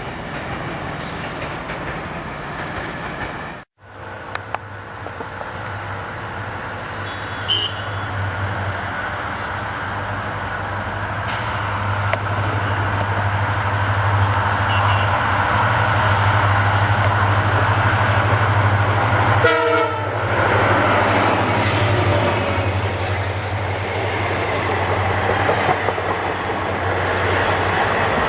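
Train running by, a steady low drone with the rumble and clatter of rolling wheels. A short horn blast sounds about two-thirds of the way through. The sound cuts out for a moment about four seconds in.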